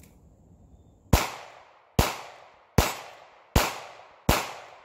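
Five shots from a North American Arms Pug .22 Magnum (.22 WMR) mini revolver fired in quick succession, about one every 0.8 seconds. Each is a sharp crack trailing off over about half a second.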